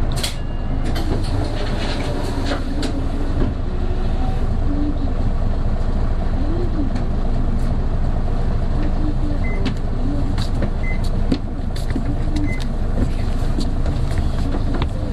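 Interior running sound of an Isuzu Erga PJ-KV234L1 city bus pulling uphill, its turbo diesel running under load. A wavering whine rides over the engine and road rumble; it is the odd noise this bus gives from about 1300 rpm as the turbo comes in, likened to an Aisin automatic transmission's whine.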